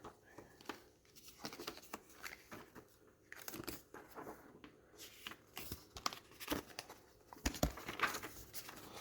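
Packaging being handled as a product box is unpacked: paper and plastic crinkling and rustling in short, irregular spells, with a few soft knocks in the second half.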